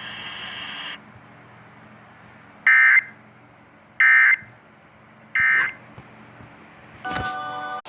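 Three short, shrill electronic data bursts about a second and a half apart, heard over a radio: the Emergency Alert System end-of-message codes that close a National Weather Service warning broadcast. Near the end a different buzzy tone cuts in briefly and cuts off suddenly.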